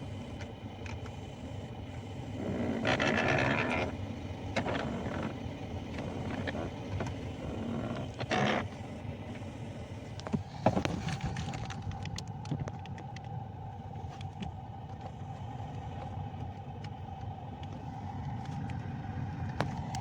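Short hissing blasts of compressed air and lubricant spray into a Ford EcoSport's AC air-direction control actuator, to clean and lubricate it against its abnormal noise. Two blasts come in the first half, then a steady hum with scattered clicks.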